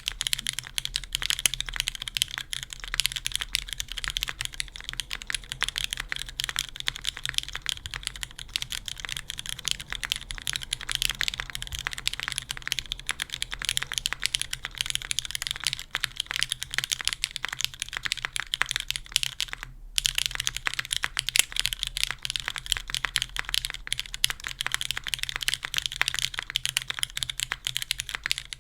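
Continuous fast typing on a Kalam Merisi Ottantaquattro custom mechanical keyboard with lubed Cherry MX Black linear switches, a top-mounted carbon fibre plate and GMK keycaps. The keystrokes come as a dense stream of clicks, with a brief pause about two-thirds of the way through.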